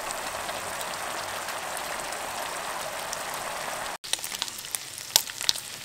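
Cubed pork belly cooking in a sauce in a frying pan, with a steady, dense sizzle. About four seconds in, it cuts to sliced sausage frying in shallow oil: a thinner sizzle with sharp, scattered pops and crackles.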